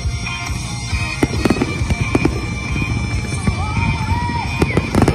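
Fireworks display going off: a rapid string of sharp bangs and crackles over a dense low rumble of launches and bursts.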